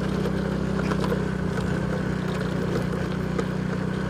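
Motorcycle engine running at a steady, even speed while riding, heard from the rider's seat, with a few faint clicks over it.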